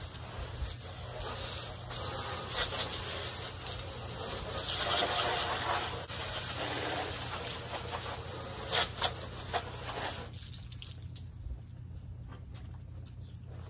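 Garden hose spraying water onto window glass: a steady hiss that swells and shifts as the spray moves, with a few sharp taps near nine seconds. It stops about ten seconds in when the water is shut off.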